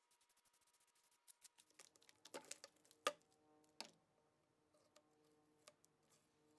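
Near silence broken by a few sharp clicks, about two and a half, three and nearly four seconds in, the middle one the loudest. A faint steady tone comes in under them about a second and a half in.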